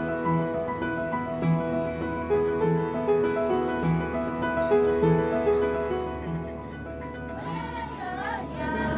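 Background music: sustained keyboard-like notes over a low note that repeats a little more often than once a second. About seven and a half seconds in, a wavering voice joins the music.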